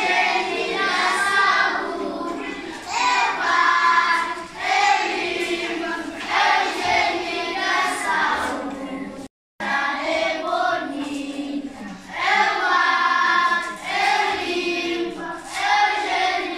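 A group of young schoolchildren singing together. The singing breaks off for a moment about nine seconds in, then carries on.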